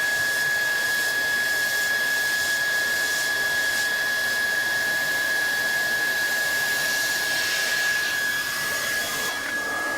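Handheld hot-air plastic welding gun (Leister Triac) running steadily, its blower giving an even rush of air with a thin constant whistle.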